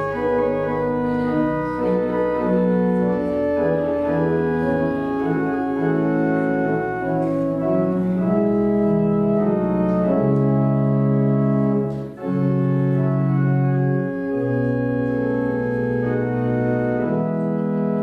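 Organ playing a postlude in sustained chords that change every second or two, with a brief break about twelve seconds in.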